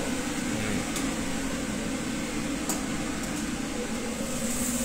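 Steady hum of commercial kitchen ventilation running, with two faint clicks, about a second in and near the three-second mark.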